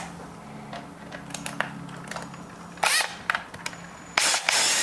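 Small clicks and taps as screws and parts are handled, a short burst from a power drill about three seconds in, then the drill running steadily for about a second near the end, driving in a screw that secures the coffee grinder's gearbox and motor assembly.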